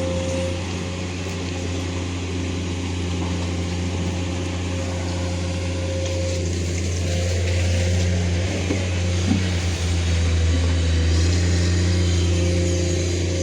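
Excavator's diesel engine running steadily, with a thin steady whine over it.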